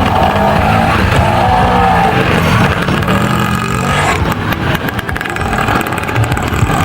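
Motor vehicle engine running loudly and steadily, with its pitch wavering up and down.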